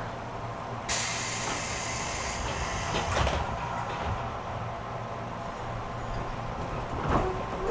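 Inside a stopped JR 205 series commuter train car, a sudden hiss of compressed air starts about a second in and lasts about two seconds, ending in a clunk as the pneumatic doors shut. A second knock comes near the end, over the steady low hum of the car's equipment.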